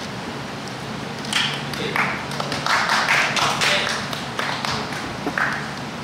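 Hall audience clapping in scattered, irregular bursts that start about a second in and thicken in the middle, with a shout or two over them.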